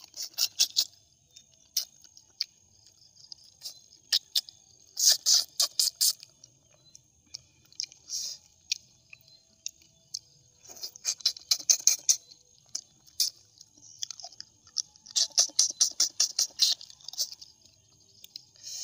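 A person chewing the boiled head of a suckermouth catfish close to the microphone: several bouts of rapid, wet crunching clicks with short pauses between them.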